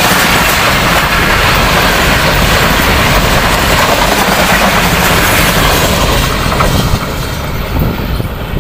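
Passenger coaches of an express train passing close by at speed: a loud, steady rushing of wheels on rail. The sound drops off about seven seconds in as the last coach goes by and the train draws away.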